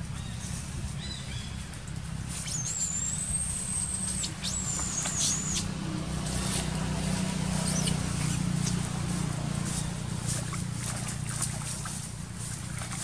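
Outdoor ambience: a steady low rumble throughout, with thin high-pitched whistling calls with quick dips for about three seconds near the start, and faint small knocks and splashes from young macaques clambering in a metal basin of water.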